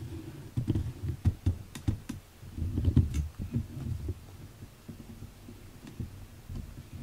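Handling noise from a hand-held camera being moved: irregular low thumps and rumbling with a few clicks, busiest in the first few seconds and then settling to faint.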